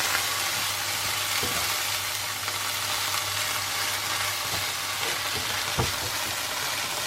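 Vegetables sizzling steadily as they are stir-fried in a pan, with a few light knocks of the utensil against the pan.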